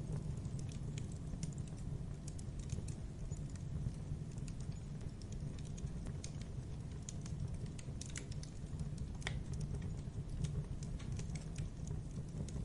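Fire burning: a steady low roar of flames with frequent irregular crackles and pops throughout.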